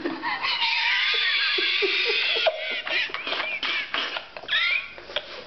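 A person laughing hard and high-pitched: first a drawn-out wavering squeal, then shorter broken bursts of laughter.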